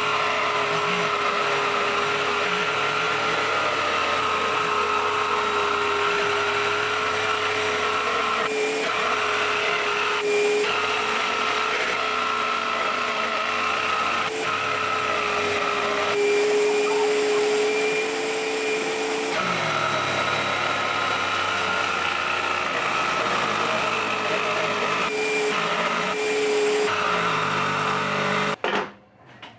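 Electric jigsaw cutting a circle in a thick wooden speaker baffle, with a shop vacuum running alongside and giving a steady whine. Both cut off suddenly near the end.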